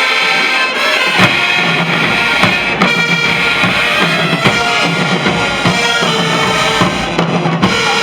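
Marching band playing, the drumline's bass drums and snares to the fore with brass held underneath.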